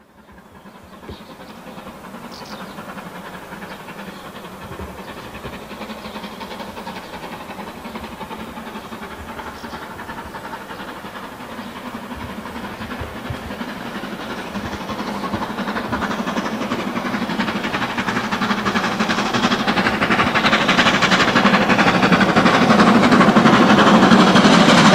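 BR Standard Class 5MT two-cylinder steam locomotive working hard with a train, its rapid exhaust beats and hiss growing steadily louder as it approaches.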